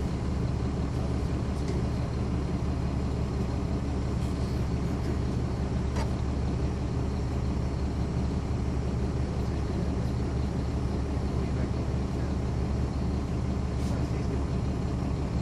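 Caterpillar C13 ACERT diesel engine of a NABI 40-ft transit bus running at a steady, unchanging low pitch, heard from inside the bus.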